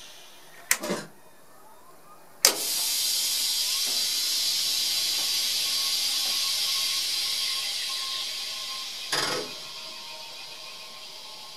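Compressed air hissing in the cab of a class 451 electric multiple unit during start-up. It begins with a sharp clunk about two and a half seconds in, after an earlier clunk about a second in, then slowly fades, with another short burst a little before the end.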